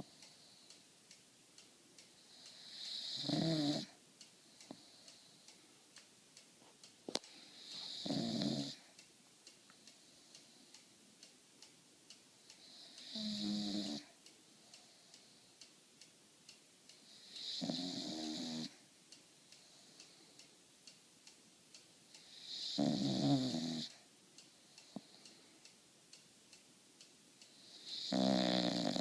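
English bulldog snoring in its sleep: six loud snores at roughly five-second intervals, each swelling over about a second before stopping.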